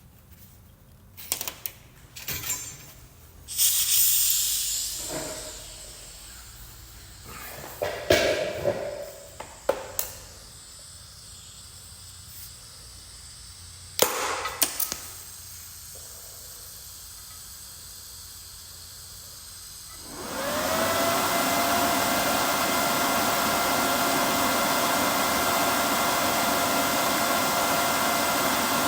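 Knocks and clicks as the torch and work are handled. About two-thirds of the way in, a TIG arc from a Miller Maxstar 161 STL inverter welder is struck on steel pipe. It burns with a steady hiss and a faint high whine that rises briefly, then holds.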